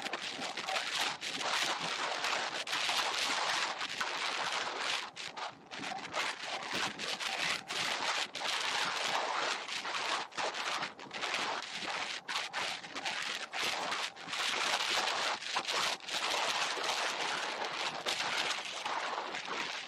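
Wind rushing over an action camera's microphone on a moving road bike, a steady hiss that keeps dipping and surging, mixed with the tyres rolling on asphalt.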